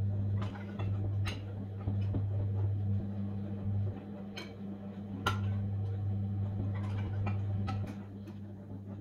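Scattered light clicks and ticks as the steel shaft and steel wire rings of a 3D-printed wire race bearing are handled and turned, over a steady low hum. The sharpest click comes a little past the middle.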